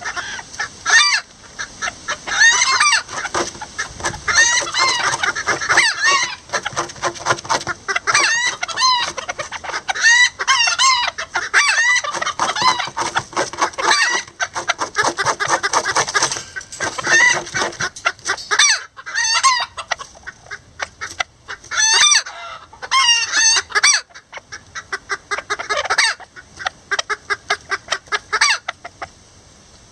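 Lavender Old English Game bantam chickens clucking and chattering at the nest, a dense run of short, quick calls that thins out into separate bursts with pauses in the second half.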